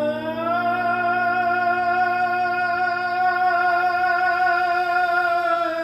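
A male singer holds one long note with vibrato, sliding up slightly at the start, over a sustained accompanying chord; both cut off right at the end.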